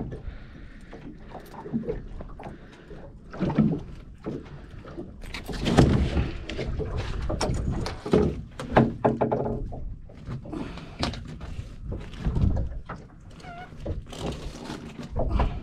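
Irregular knocks and thumps, loudest in a few clusters midway, from handling gear and catch aboard a small fishing boat.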